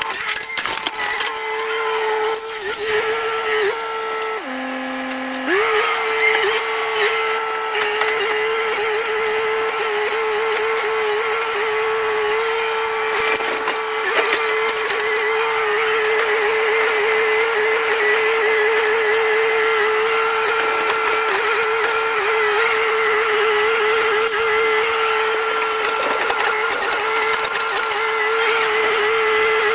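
Excavator running steadily with a high, constant hydraulic whine. The pitch drops briefly about four to five seconds in, then comes back.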